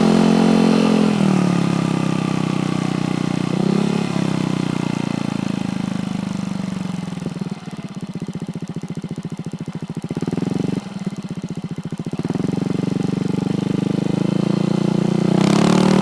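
Motorcycle engine through an Exos R6 aftermarket exhaust with the silencer insert removed, being revved. Short blips of throttle near the start and about four seconds in settle down to a slow, pulsing idle in the middle, with one more short blip. The revs then climb steadily toward the end.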